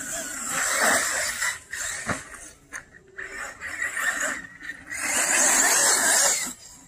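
HPI Vorza electric RC buggy's brushless motor whining in bursts of throttle, its tyres hissing on loose dirt, with the loudest burst near the end. A single sharp knock about two seconds in.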